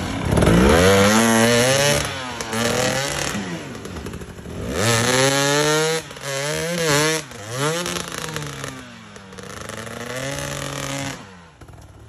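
Enduro motorcycle engine revving hard in repeated rising and falling bursts while the bike is stuck in deep mud and its rear wheel spins. The revving drops away near the end.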